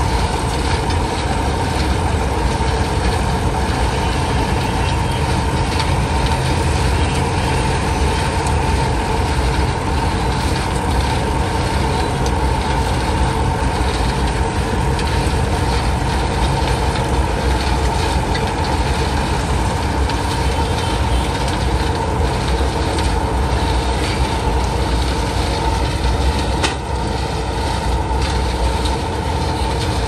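Mobile bitumen drum mixer running: a continuous, loud mechanical din from the rotating drum and its engine-driven machinery, with a steady high hum throughout.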